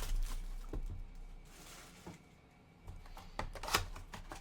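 Cellophane shrink wrap being torn and crinkled off a sealed cardboard box of trading card packs, with light taps and clicks as the box is handled and opened. A short rustling hiss comes about halfway through, and a few sharper clicks come near the end.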